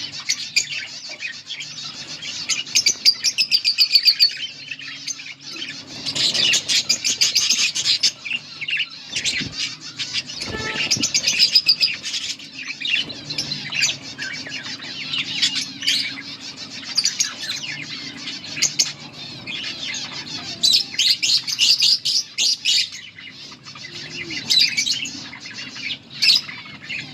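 A pair of budgerigars chattering and chirping, a continuous fast warble of high chirps with short louder flurries.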